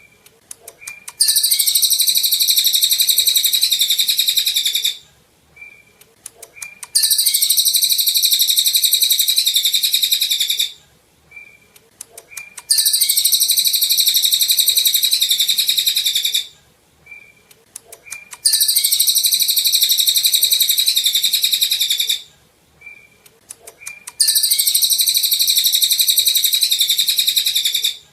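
Cililin songbird singing in long, high, rapid bursts of about four seconds, five times over, with a few short call notes in the pauses between them. The bursts repeat identically, as in a looped 'masteran' tutor recording.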